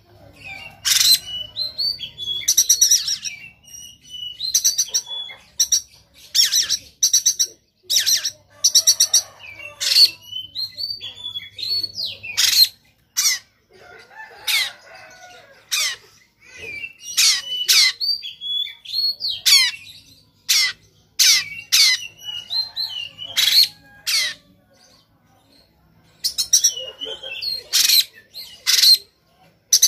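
Oriental magpie-robin singing in fired-up, combative form: rapid, harsh, rough 'shot' notes mixed with short whistled phrases, in bursts with brief pauses and a short lull shortly before the end.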